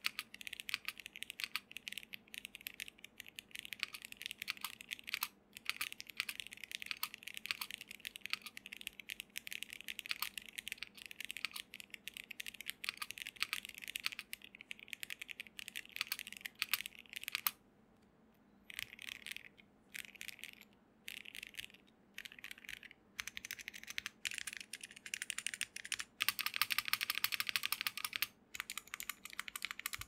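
Typing on a stock Monsgeek M1 mechanical keyboard with Cap v2 Milky switches: a fast, steady stream of key clacks with a few short pauses, and a dense flurry of keystrokes near the end.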